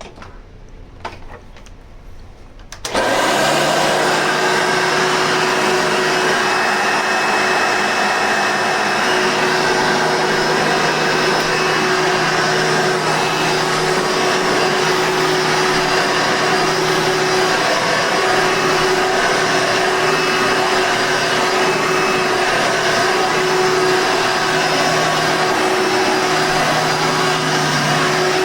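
Hoover Soft N Light Supreme upright vacuum cleaner with a 7-amp motor switched on about three seconds in after a few clicks, then running steadily at full speed with a constant whine over its airflow noise.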